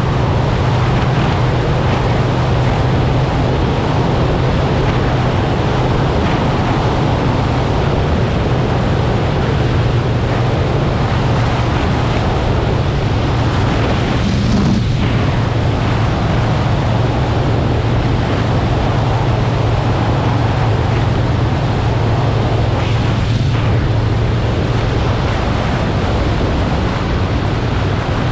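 Motorcycle engine running at a steady cruise, a constant low hum under loud, even wind rush on the microphone.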